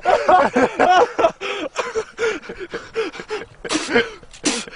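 People laughing in quick, short bursts, with two sharp breathy hisses near the end.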